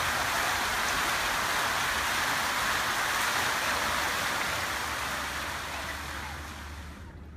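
Fountain water splashing steadily into its basin and over small stepped cascades, a continuous rushing hiss that fades out over the last couple of seconds.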